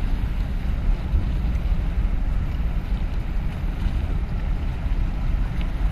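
Wind buffeting the microphone with a low, fluttering rumble, over small waves splashing against the concrete blocks of a breakwater.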